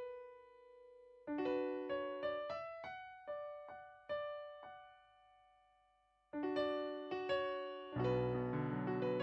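Background piano music: a slow melody of single struck notes, a short pause, then fuller chords with a bass line coming in near the end.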